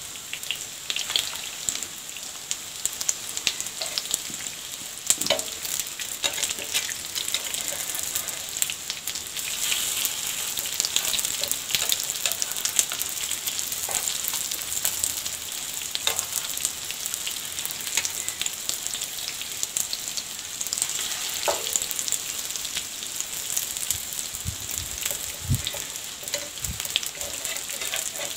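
Egg-dipped chicken kababs shallow-frying in hot oil in a pan: a steady crackling sizzle with fine spitting pops and a few louder knocks.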